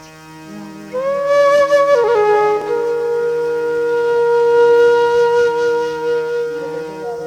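Background music: a flute-like wind instrument plays over a steady drone, sliding down briefly and then holding one long note.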